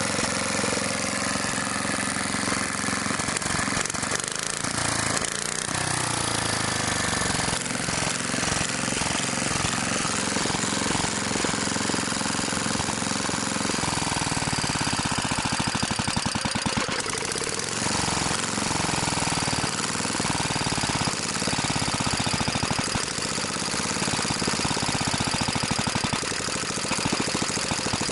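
BSA 220cc single-cylinder engine running at open throttle without a muffler, a fast hard thump, its speed dipping and recovering a few times. The fuel tap is shut, so it is burning off the fuel left in the carburettor before it stops.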